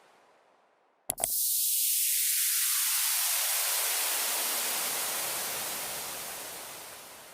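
A sharp click about a second in, then a loud hiss of noise whose low end sweeps steadily downward over several seconds before it fades out. It sounds like an electronic filtered-noise sweep, the kind used as a transition effect.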